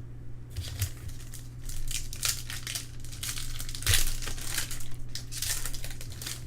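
Trading-card pack wrapper crinkling and rustling as it is handled and torn open, in a run of irregular crackles, over a steady low electrical hum.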